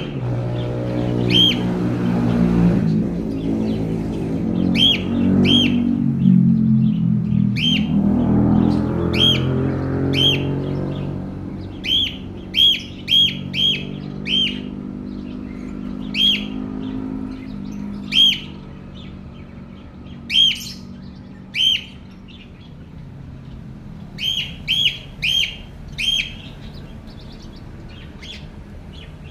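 Budgerigar (Australian parakeet) giving short, sharp single chirps, repeated irregularly and sometimes three or four in quick succession. A low droning motor-like hum rises and falls underneath during the first dozen seconds, then fades.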